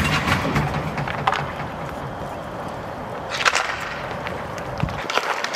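Inline hockey sticks clacking on the ball and the rink surface: one sharp crack at the start, a short scraping burst about three and a half seconds in, and a few lighter clicks near the end.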